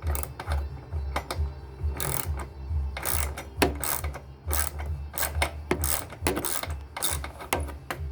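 Ratchet wrench clicking in quick, uneven strokes as bolts are backed out of a small engine, over a steady low hum.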